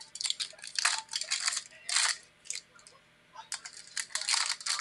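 Trading card pack wrapper being torn open and the cards handled, in quick crackly bursts of crinkling and rustling. There is a short pause a little past halfway.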